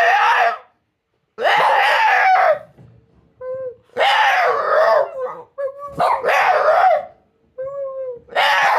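A dog howling and yowling in a string of loud, wavering calls about a second long each, with shorter, softer whines between them.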